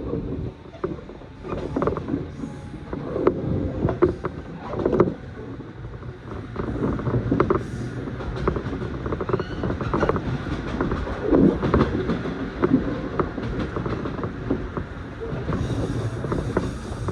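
A passenger train running along the line, heard from inside the car: a steady rumble of wheels on rail, broken by irregular clicks and knocks from the car body and the track.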